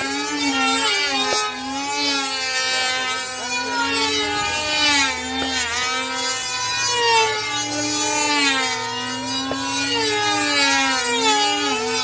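Two radio-controlled combat model airplanes' small engines buzzing at high pitch, the two tones overlapping and rising and falling as the planes dive, turn and pass.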